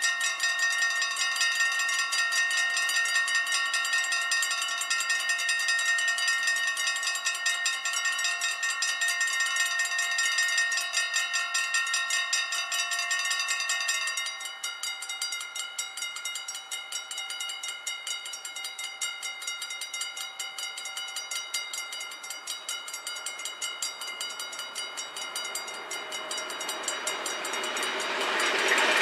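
Level-crossing warning bells start ringing with a fast, even ring as the red lights begin to flash. About halfway through, the ringing drops in level and thins out once the barriers are down. Near the end the noise of an approaching electric train rises under it.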